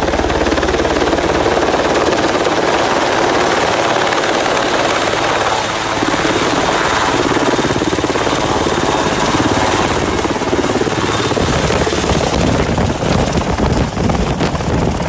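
A large military helicopter hovers in to land, with its rotor and turbine engines running loudly and steadily. The low rotor beat grows stronger in the last few seconds as the helicopter comes in close.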